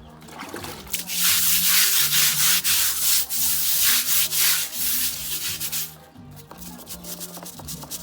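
A loud, rough rubbing noise lasting about five seconds, over soft background music.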